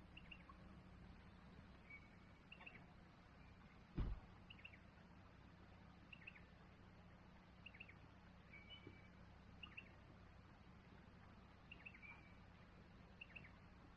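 Faint, quiet bird chirps, short high notes repeating every second or so, with a single dull thump about four seconds in.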